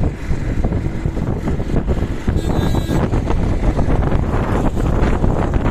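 Wind buffeting the microphone of a moving vehicle, over a steady low rumble of engine and road. A brief high-pitched tone sounds about halfway through.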